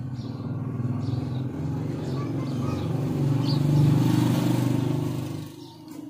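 A motor vehicle's engine passing by, growing louder to a peak about four seconds in and then fading away quickly near the end.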